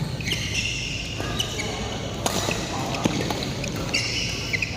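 Sports shoes squeaking on an indoor court floor during a badminton doubles rally, with a few sharp knocks of rackets striking the shuttlecock, over the noise of the hall.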